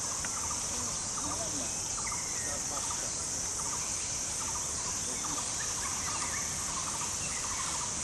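Forest insects droning steadily at a high pitch, with faint scattered bird chirps and calls.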